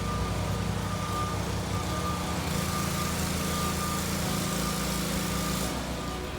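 A machine's motor running steadily, with a high, short electronic beep repeating a little faster than once a second, like a reversing alarm. A louder hiss joins in for about three seconds from the middle.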